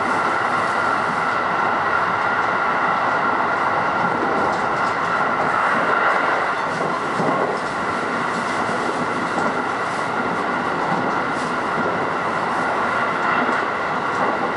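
Electric train of the JR West Sanyo Main Line running at speed, heard from inside the passenger car: a steady rumble of wheels on the rails with a steady high hum over it.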